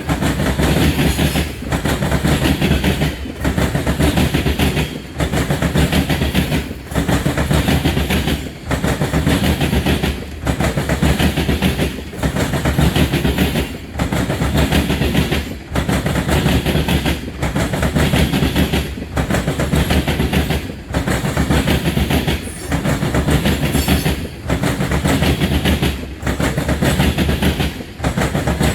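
Freight train cars rolling past, their wheels clattering over the rails in a steady repeating rhythm, with a brief lull about every two seconds as each car goes by.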